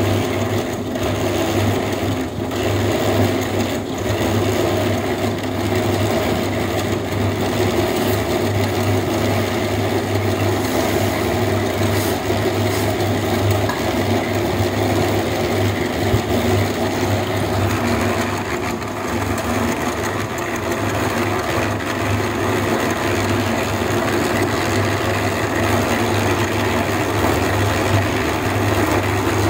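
Electric concrete mixer running: a steady, unbroken machine hum with a low drone.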